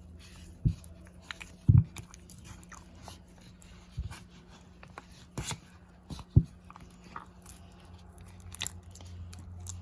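Clear homemade slime kneaded and stretched by hand to mix in green food colouring, giving irregular sticky clicks and pops, two of them loud, over a low steady hum.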